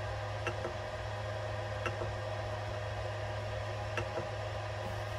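Steady hum of an Ender 3 V2 3D printer's cooling fans idling, with a few faint ticks.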